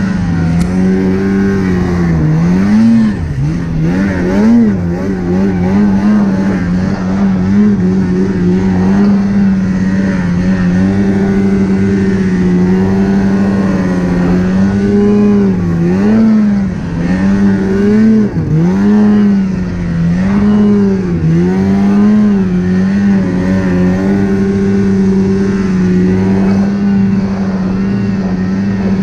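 Polaris snowmobile engine running hard at a steady high note, its pitch dipping briefly and climbing back several times as the throttle is eased and reopened.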